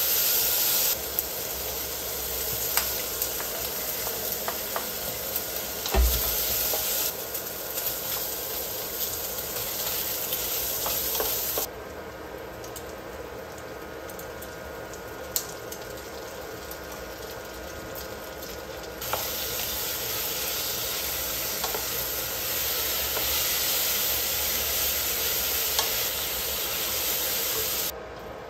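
Meat sizzling as it fries in a ceramic-coated pot, with a wooden spoon stirring and scraping against the pot. One loud knock about six seconds in.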